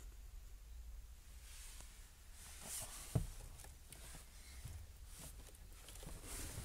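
Faint rustling and handling noise from a hand and phone moving among car wiring, with one soft knock about three seconds in, over a low steady hum.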